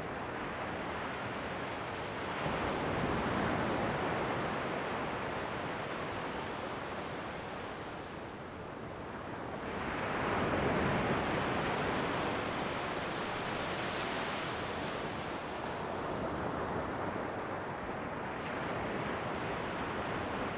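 Ocean waves breaking and washing in, a continuous surf hiss that swells twice, the louder swell about ten seconds in.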